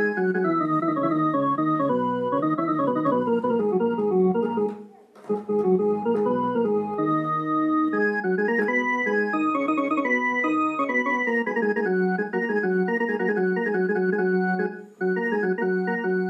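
Electronic harmonium played by hand: a melody of sustained notes over held lower notes, breaking off briefly about five seconds in and again near the end.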